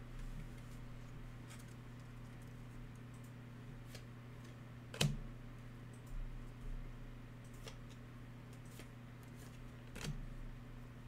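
Panini Elite basketball trading cards being handled: a few soft clicks and taps as a stack of cards is picked up and flipped through, the loudest about halfway, over a steady low hum.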